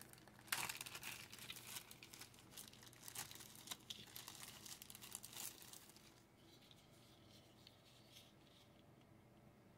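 Faint crinkling and crackling of plastic packaging being handled, with small clicks, for about six seconds, then near silence.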